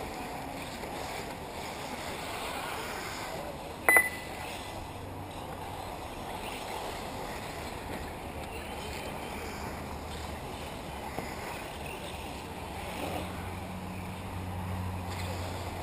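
Radio-controlled off-road model cars running on a dirt track, heard as a steady background noise with a low hum that swells near the end. One sharp knock with a short ring about four seconds in.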